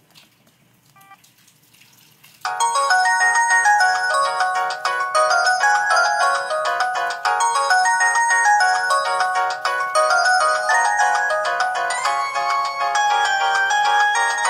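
Samsung ringtone playing through a ZTE Z222 phone's speaker. After a short quiet gap, a quick synthesized melody with several notes sounding at once starts about two and a half seconds in.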